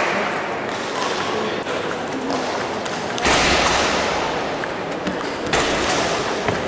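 Table tennis ball being served and struck, with sharp clicks off the bats and table at irregular intervals over steady hall noise.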